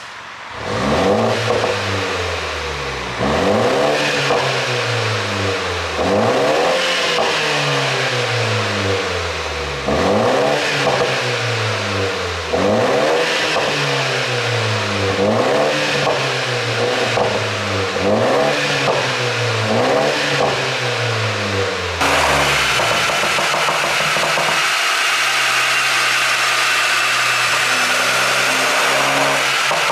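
BMW G20 330i's turbocharged four-cylinder engine with a pop-and-bang ECU tune, revved about nine times, each rev climbing then falling away with short pops on the overrun. About two-thirds of the way through it drops to a steady idle.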